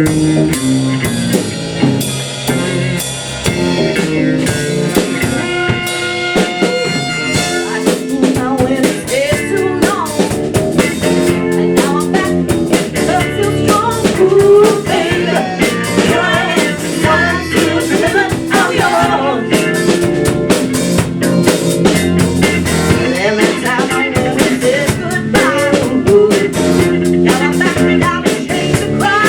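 Live band playing a blues-rock number: a drum kit keeping a steady beat under bass and electric guitar, with bending lead lines.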